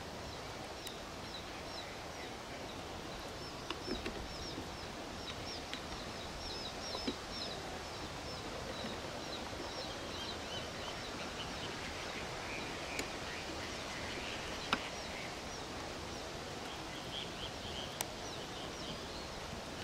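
Small birds chirping in quick, high-pitched series over steady outdoor background noise, with a few faint clicks.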